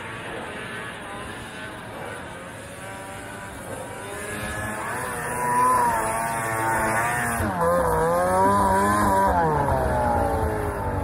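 Two-stroke snowmobile engine revving up and down while riding, its pitch climbing and falling again and again and getting louder about five seconds in.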